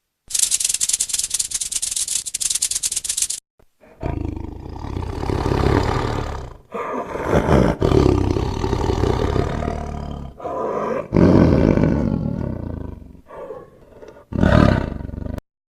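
A dense, dry rattle lasting about three seconds, then a big cat roaring and growling in a series of long, deep calls with short breaks between them.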